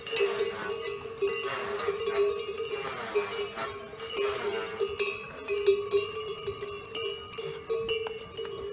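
Bells on a train of loaded pack yaks ringing steadily and clanking many times as the animals walk past.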